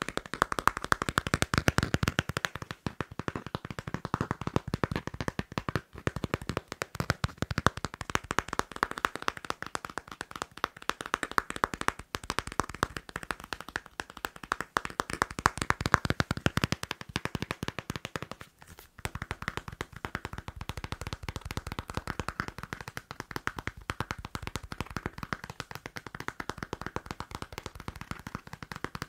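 Fast tapping and scratching on a passport: a dense, unbroken run of quick taps and clicks, with a brief pause about two-thirds of the way through.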